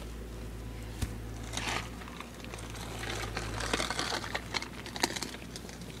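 Irregular rustling and crackling of leaf litter, mulch and plants being brushed and handled at close range, with a sharp click about a second in and a denser run of crackles in the second half.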